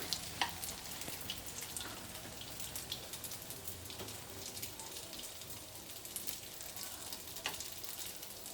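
Tofu frying in hot cooking oil in a pan: a steady sizzle with scattered crackles and pops.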